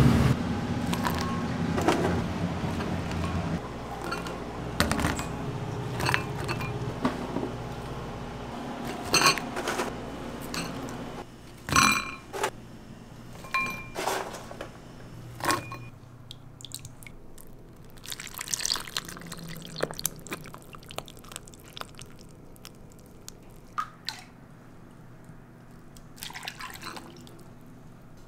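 Thick bean soup being stirred and ladled, with pouring and dripping liquid. Scattered sharp clinks and knocks ring out as the metal ladle and pot meet the ceramic bowls.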